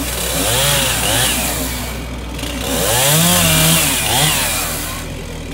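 Gas chainsaw cutting up a felled tree in two passes, the second starting about halfway through. Each time the engine revs, its pitch rises and then sags and falls away.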